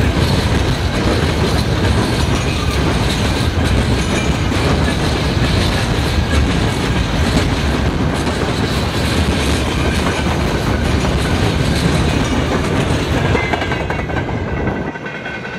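Freight train of open-top gondola wagons passing at speed: steady loud noise of wheels on rails with quick clickety-clack over the rail joints. Near the end the last wagon goes by and the noise falls away, leaving a faint high ringing.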